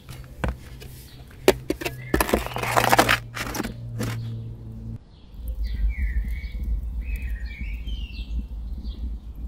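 A few knocks and a short scraping rush about two seconds in as a metal baking tray is pushed into a wood-fired stone oven over the ashes. After a cut, birds chirping over a low rumble.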